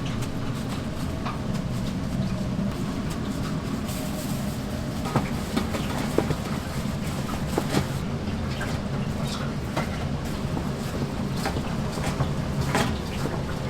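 Kitchen work: a steady low rumble with scattered sharp clicks and knocks of utensils and dishes.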